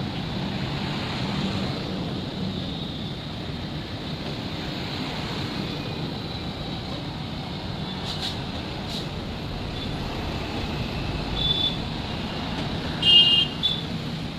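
Steady rumbling noise of a running train. Near the end come a few short high-pitched tones, the loudest about a second before the end.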